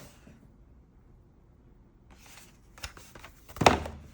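Handling noise from a small plastic device being picked up and moved: a brief rustle, a click, then a louder knock about three and a half seconds in.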